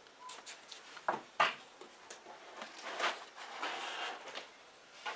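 Handling noise from a motorcycle seat with a paper pattern taped over it being turned over on a table. Two sharp knocks come about a second in, then rustling and scraping around three to four seconds in, and a click near the end.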